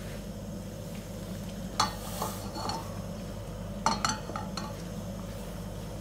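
Vegetable oil heating in a frying pan, crackling and spitting sharply twice, about two seconds apart, the first with a short hiss, over a steady low hum.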